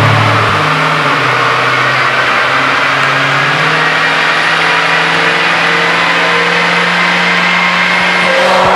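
Supercharged 6.2-litre V8 of a Dodge Challenger SRT Hellcat running hard under load on a chassis dynamometer. Its pitch climbs slowly and steadily as the rollers gain speed.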